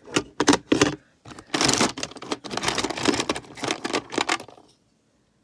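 Loose plastic Lego bricks and minifigures clattering and rattling in a storage tub as a hand rummages through them and lifts out a model; the clatter stops abruptly near the end.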